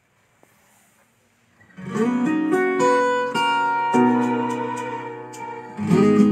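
About two seconds of near quiet, then a song's intro starts: strummed and plucked acoustic guitar chords, a new chord about every two seconds, with a melody line over them. It is the recorded song being played back.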